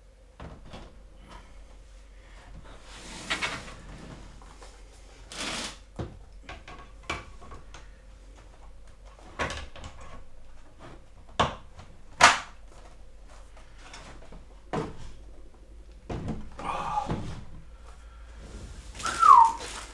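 Scattered knocks, clicks and rustles of a computer monitor and its packaging being handled and set down, the sharpest knock about twelve seconds in.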